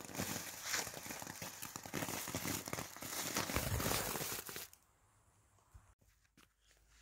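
Small Category F1 ground fountain (Flitzer Feuerstein) burning on asphalt, spraying sparks with a dense crackling hiss that stops about two-thirds of the way through.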